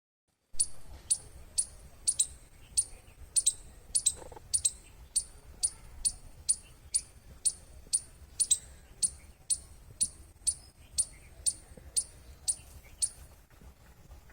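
Squirrel chirping: a steady run of sharp, very high chirps, each falling slightly in pitch, about two a second, stopping shortly before the end.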